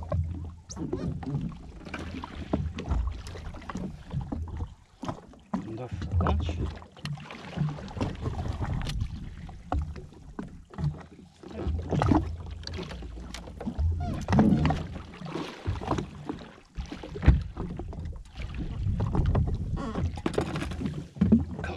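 Water slapping against the hull of a drifting jetski, in uneven swells, with scattered knocks and clatter from fish and tackle being handled on board.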